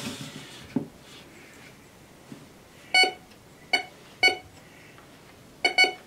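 GTX 4030 metal detector's speaker giving short pitched beeps: three single beeps about three seconds in, then a quick double beep near the end, as it responds to the nails and rebar in the floor. A soft handling knock comes at the very start.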